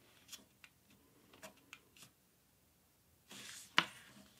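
A letter-size sheet of paper handled and folded by hand: a few faint crinkles and taps, then near the end a short rustle as the paper slides over itself, with one crisp snap as the fold is pressed flat.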